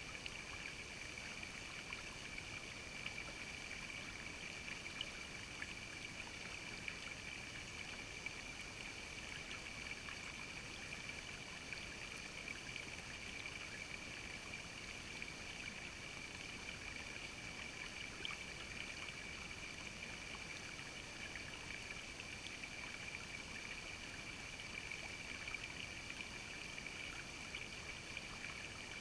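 Shallow creek water trickling and burbling steadily over rocks close by.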